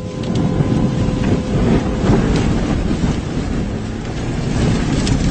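Strong tornado wind rushing against a moving vehicle, heard from inside, with scattered knocks. A steady tone sounds for about the first two seconds.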